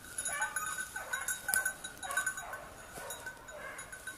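A small bell on a hunting hound's collar jingling unevenly as the petit basset griffon vendéen casts about in the undergrowth.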